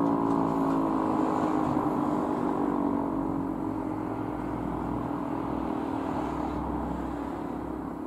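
E57 electromechanical fire-station siren winding down at the end of its test alarm: its tone slides slowly lower and fades over the first few seconds, leaving a rough whir. A low rumble sits underneath in the second half.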